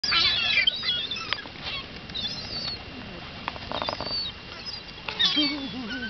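A flock of gulls calling: shrill, short, wavering cries in bursts, loudest in the first second, again a little after two seconds in, and again about a second before the end.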